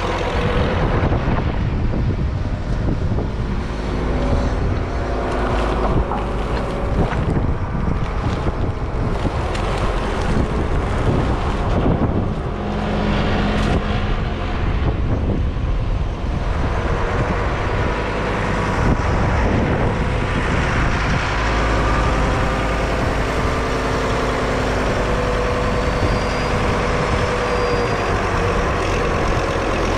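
Diesel engine of farm machinery running continuously, its note shifting now and then with the work.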